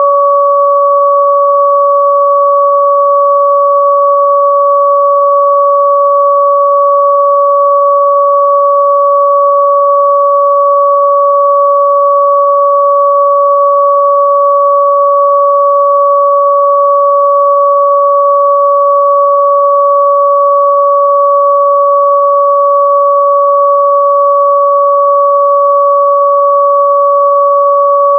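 Two steady electronic sine tones held together without change, the higher about an octave above the lower: a synthesized sound-therapy frequency tone.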